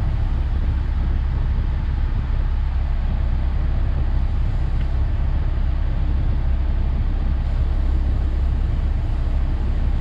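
Car's engine idling with the air conditioning running, heard from inside the cabin at the dashboard vent: a steady low rumble under the even rush of the blower fan's air.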